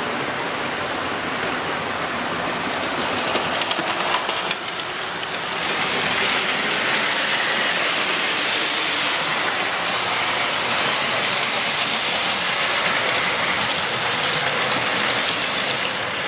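Model trains running on a model railway layout: a steady whirring rush of wheels on track and loco motors, a little louder from about five seconds in. There are some faint clicks over rail joints a few seconds in.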